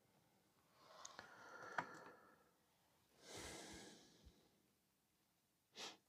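Near silence: room tone with faint breathing and a few small clicks.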